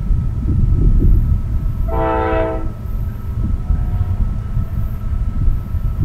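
Raised-letter Nathan K5LA five-chime horn on a GE ES44AH diesel locomotive sounds one short blast about two seconds in. Under it runs a steady low rumble from the approaching train.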